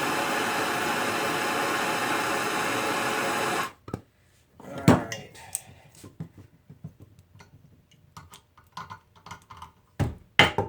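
Steady rushing hiss of a torch heating a screwdriver shaft, which cuts off suddenly about three and a half seconds in. Scattered small clicks and knocks follow, then several sharp metal taps near the end as the shaft is knocked to free it from its plastic handle.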